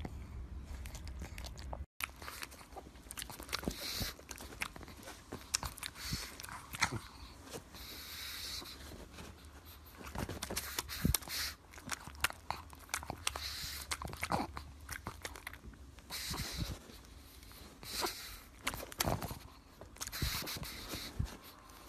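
A pug chewing and crunching on a chew held in a person's fingers: irregular crunches and mouth clicks, following a short low rumble that cuts off about two seconds in.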